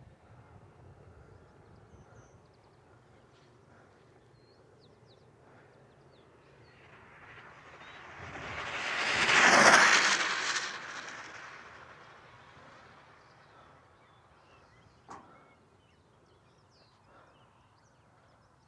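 Custom four-hub-motor electric R/C speed car passing at high speed, around 70 mph: a rushing whoosh that swells over several seconds, peaks about nine to ten seconds in, then fades as it runs off down the track. A single short knock follows about fifteen seconds in.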